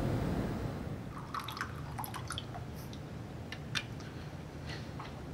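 Light clinks and taps of glassware being handled on a kitchen counter, scattered and irregular, after background music fades out at the start.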